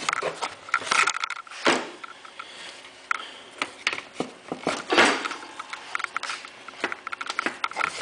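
Handling noises of a plastic battery pack and cordless circular saw on a workbench: scattered clicks, knocks and scrapes, with two short, louder swishes about two seconds and five seconds in.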